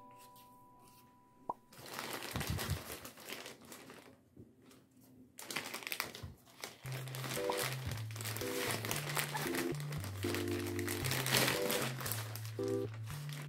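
Thin plastic bag crinkling and rustling as a headset is worked out of it, in handfuls with short pauses. Light background music plays underneath, its notes coming in more clearly about halfway through.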